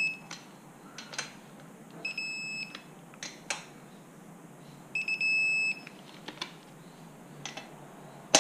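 Warren and Brown digital torque wrench beeping its alert tone as the fastener reaches the set torque. One beep ends just after the start, and two more, each well under a second long, come about three seconds apart. Sharp clicks fall between the beeps, and the loudest click comes at the very end.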